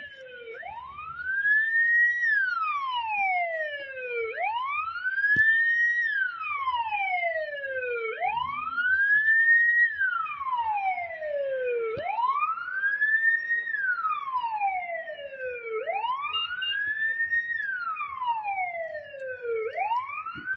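Emergency vehicle siren wailing slowly, each cycle rising and then falling in pitch, repeating about every four seconds. A second, fainter siren cycles at a higher pitch at the same time.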